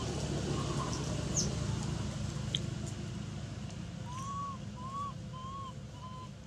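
Short, arched whistled animal calls: one about half a second in, then four in quick succession in the second half, over a steady low background rumble.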